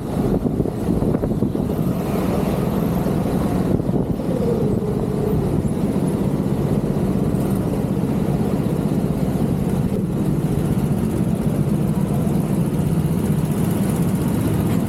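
Go-kart engine running steadily at a fairly even pitch, heard from on board the kart.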